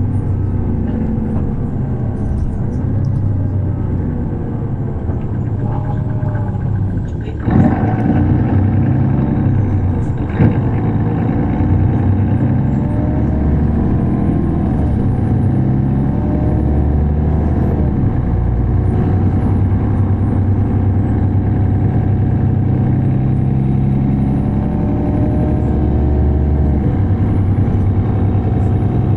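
A 2005 Mercedes-Benz O530Ü Citaro bus under way, heard from inside the cabin: its OM906hLA six-cylinder turbodiesel runs with the engine note rising and falling through the ZF automatic gearbox. Two sharp knocks come about seven and ten seconds in.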